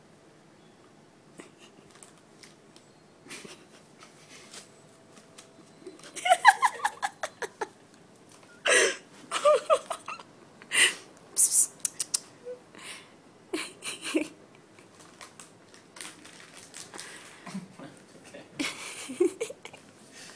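A person giggling and laughing in short bursts, loudest about six to ten seconds in, over the scattered crinkle of a plastic snack packet that a cat is wearing over its head as it moves.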